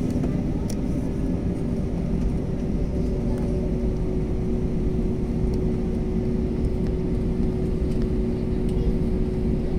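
Jet airliner's turbofan engines running at low taxi power, heard inside the cabin as a steady low rumble with a constant hum.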